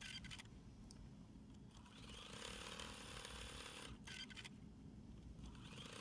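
Faint domestic sewing machine running in two short bursts of stitching, the second near the end, with a few light clicks, as it sews straight quilting lines through fabric and cotton batting layers.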